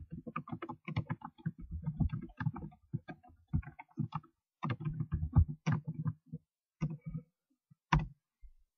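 Typing on a computer keyboard: a quick run of keystrokes that thins out toward the end.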